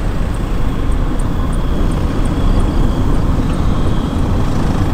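Cars driving in a slow convoy: a steady low rumble of engines and tyres on the road.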